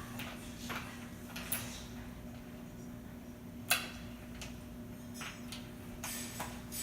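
Metal door security chain clinking and tapping in small irregular rattles as it is worked toward its slide track, with one sharper click about halfway through.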